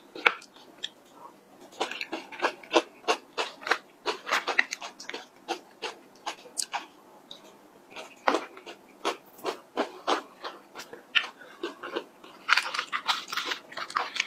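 Close-up chewing and crunching of a chocolate cream dessert with chopped nuts, many sharp crunchy clicks throughout. Near the end comes a denser scraping stretch as the plastic spoon scoops in the plastic cup.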